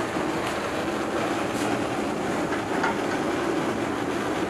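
Steady, even roar of a commercial kitchen's lit gas range burners and background machinery, with a few faint light clicks.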